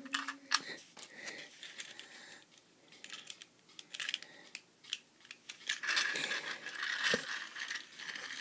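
Plastic toy cars being handled, with scattered sharp clicks and light rattles. Denser rattling and rustling starts about six seconds in.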